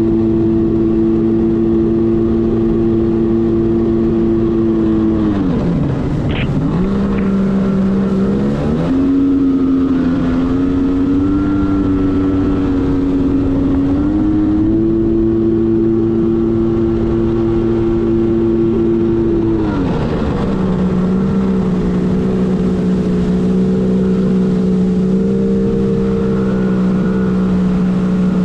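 1997 Arctic Cat TigerShark Monte Carlo 1000 personal watercraft's two-stroke engine running at a steady high pitch, with the throttle eased off twice: about six seconds in the pitch drops sharply and climbs partway back, and after rising again it falls to a lower steady pitch about twenty seconds in.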